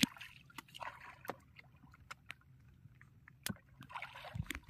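Faint scattered knocks and short rustling, splashy sounds in a small fishing boat as the catch is handled.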